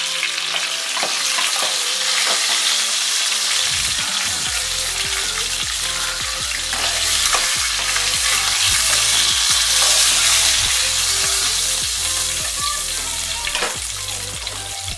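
Chicken pieces frying in hot oil in a frying pan, sizzling steadily, with the clicks and scrapes of metal tongs against the pan as the browned pieces are lifted out.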